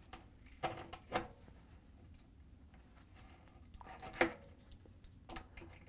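Razor blade cutting through a dryer drum's felt seal: a few short cutting strokes, the loudest about four seconds in.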